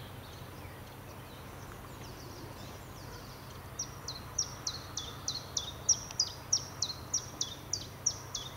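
A bird calling over and over, each short note sliding down in pitch. The calls are faint at first, then loud and evenly repeated about three times a second from about four seconds in, over a steady hiss.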